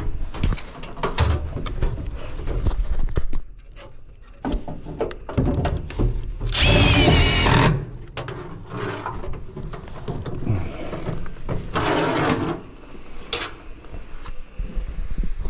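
Cordless power driver run in several short bursts, the longest and loudest about six and a half seconds in and lasting about a second, with clicks and knocks of tools and metal parts between them.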